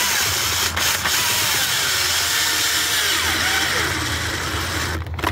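Power drill driving a screw, its motor running for about five seconds with the pitch wandering up and down, then stopping just before the end.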